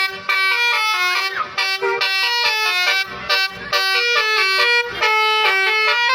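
Bus telolet horn (basuri-type musical air horn) playing a fast tune of short, stepped notes that jump up and down in pitch.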